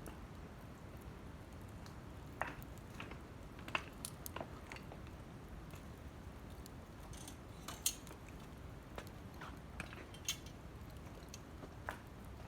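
Wood fire crackling: irregular sharp pops and snaps of burning wood, a few louder than the rest, over a steady low rush of the flames.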